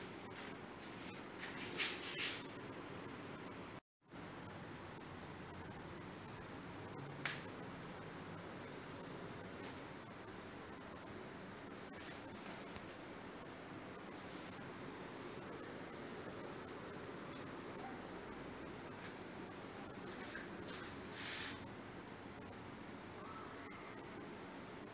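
A steady, high-pitched insect trill, like a cricket's, running without a pause except for a brief dropout about four seconds in. A few faint clicks sit beneath it.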